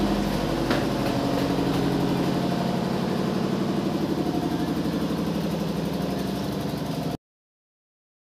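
Small generator engine running steadily at idle; the sound cuts off abruptly about seven seconds in.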